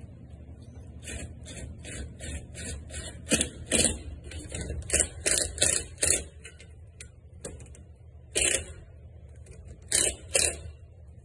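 A screw being turned by hand through a curtain track into a wood block, in a run of short scraping strokes a few a second. Louder strokes come around four, five to six, eight and a half and ten seconds in.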